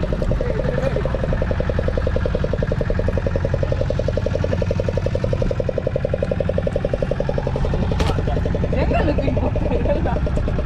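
Fishing boat's engine running steadily at idle, an even, fast throb.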